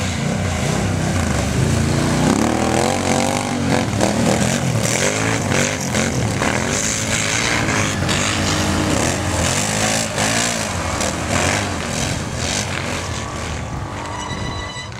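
Several racing ATV engines revving hard, their overlapping notes rising and falling as the quads accelerate and pass.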